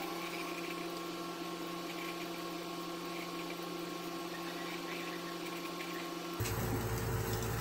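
Steady faint hum and hiss of room tone, with a few steady tones and no distinct events.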